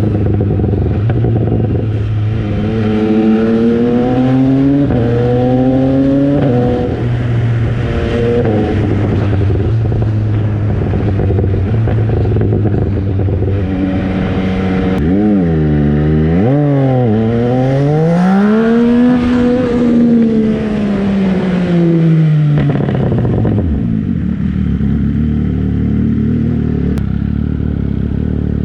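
MV Agusta Brutale 800's three-cylinder engine under way: the revs rise in a few short pulls with breaks between them, then climb once more in a long rise and slow fall. It settles to a steady lower note near the end.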